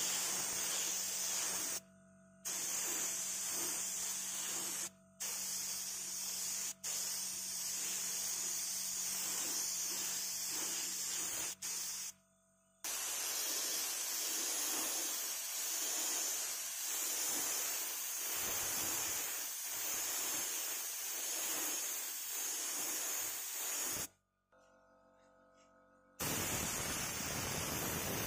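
Aerosol spray paint hissing from the can's nozzle in long bursts, stopping and starting several times, with one longer pause of about two seconds near the end.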